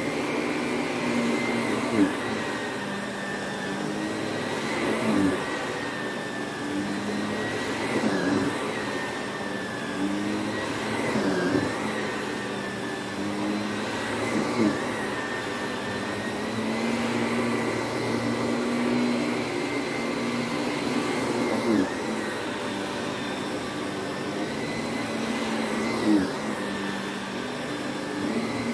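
Vacuum cleaner running steadily over a rug, its motor hum wavering in pitch, with a brief louder swell about every three seconds.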